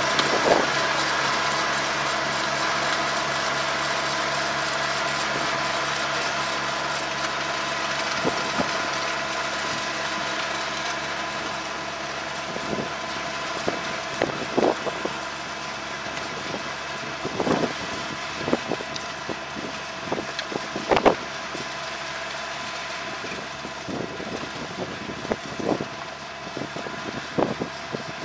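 Tractor diesel engine running steadily under load as it pulls a ridging and mulch-laying rig away, slowly fading. Scattered sharp clicks and crackles come through, more often in the second half.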